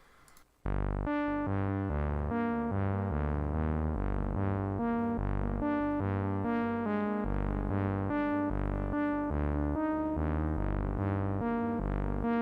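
A melodic sample-kit loop playing back: synthesizer and electric-piano-like keys over a bass line, repeating notes in a steady rhythm. It starts suddenly about half a second in.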